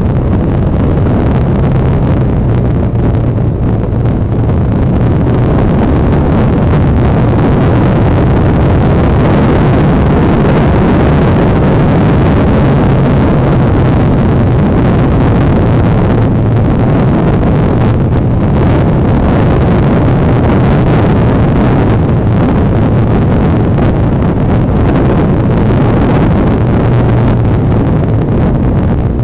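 Honda NX650 Dominator's single-cylinder four-stroke engine running steadily while the motorcycle is ridden at road speed, with wind noise on the microphone.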